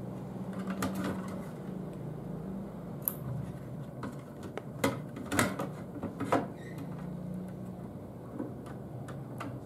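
A hard disk and its SATA and power cables being pushed and shifted into position inside an open metal DVR case: scattered light clicks and knocks, several close together around the middle, over a steady low hum.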